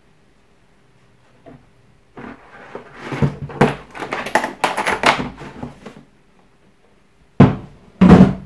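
Hard plastic tool carrying case being handled: a couple of seconds of clattering and knocking as the lid is shut and the case handled, then two loud knocks near the end as the case is moved and put down.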